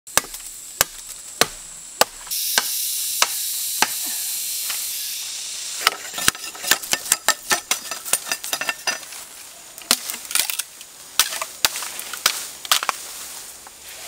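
A broad-bladed chopper hacking at bamboo: sharp strikes about every 0.6 s, with a rustling hiss of leaves for a few seconds. Then comes a fast run of quicker knocks and cracks as the leafy side branches are trimmed off the stalk.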